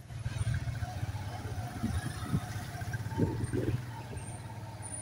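A motorbike's engine runs with a steady low hum under road noise while riding along a wet street.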